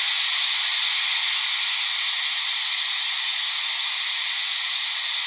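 Cylinder blowdown sound effect from the Bachmann Spectrum Baldwin 4-6-0's DCC sound decoder, played through the HO model locomotive's onboard speaker: a steady, quite loud hiss of venting steam.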